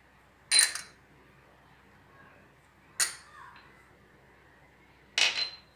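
A spoon clinking against a small bowl three times, about two seconds apart, each clink ringing briefly, as spoonfuls of ground spices are added to the bowl to be mixed together.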